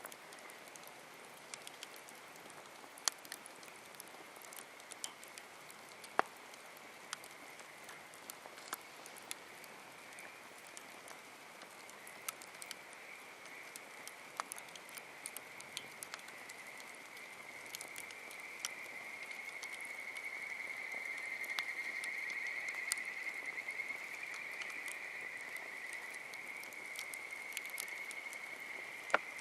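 Wood campfire crackling, with irregular sharp pops and snaps scattered throughout. Underneath runs a steady high-pitched drone that grows louder past the middle.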